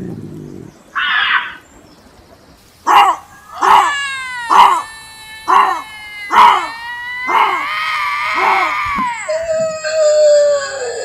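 Bobcat calling: a short harsh rasp, then a run of about six short screaming cries, each falling in pitch, followed by a longer wavering scream and, near the end, a drawn-out lower cry that slowly slides down.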